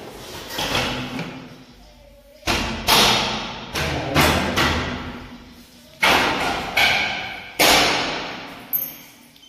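Hammering during window fitting: about eight heavy blows at an uneven pace from a couple of seconds in, each echoing in the bare room.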